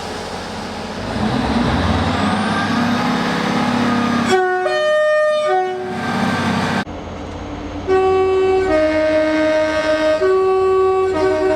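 Rumble and engine drone of a train, then a multi-chime train air horn sounding a chord of several notes, cut off abruptly after about two seconds. A few seconds later a second horn chord starts suddenly, and its notes shift partway through.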